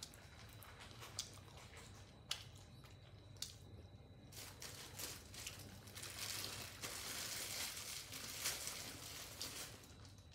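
Chewing crispy deep-fried catfish close to the microphone: a few separate crunchy bites in the first seconds, then dense continuous crunching from about four seconds in.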